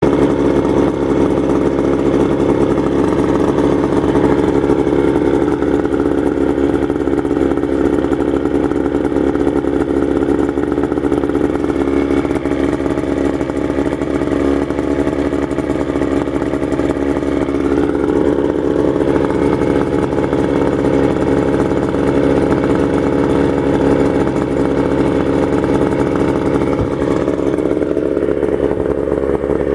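1971 Mercury 20 hp Thunderbolt two-stroke outboard motor running steadily on a test stand, fed by a hose on the lower unit.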